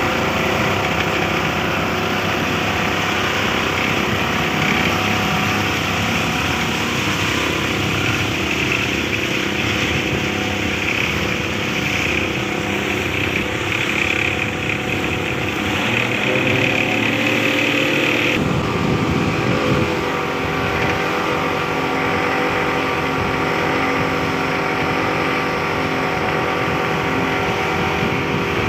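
Yamaha Enduro 60 hp two-stroke outboard motor running steadily under test. Its sound changes abruptly about two-thirds of the way through.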